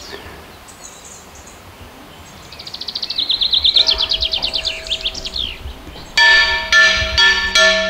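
A small bird sings fast trills of rapid high notes. About six seconds in, church bells start ringing in quick repeated strokes, several bells sounding together, and they are louder than the birdsong.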